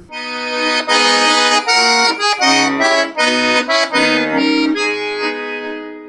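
Instrumental introduction to a song played from a backing track: a melody over sustained chords, dying away near the end.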